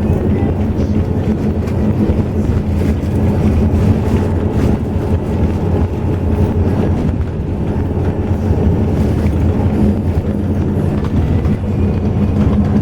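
Highway coach under way: a steady, low engine and road drone.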